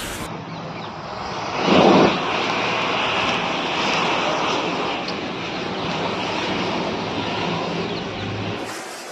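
A large mass of loose match heads flaring up and burning: a steady rushing whoosh of flame, with a louder surge about two seconds in.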